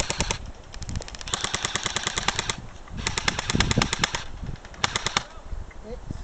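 Airsoft rifle firing on full auto in four bursts of rapid clicks, the two middle bursts each lasting over a second.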